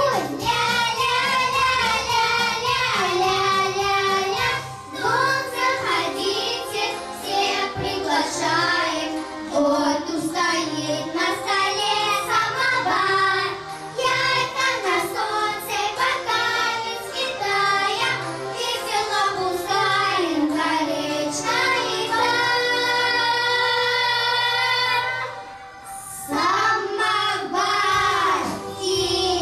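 Children's group singing a Russian song into microphones over a musical accompaniment, amplified in a hall. A long held note near the end, a brief drop in level, then the singing picks up again.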